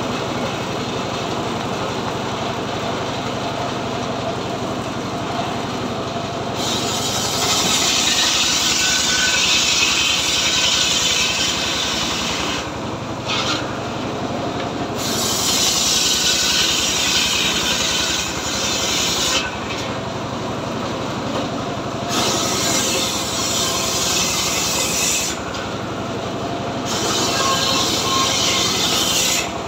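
Homemade engine-driven saw bench cutting a teak log: the engine runs steadily throughout, and the blade bites into the wood in several long, loud cuts, the first starting about six seconds in, with the engine alone between them.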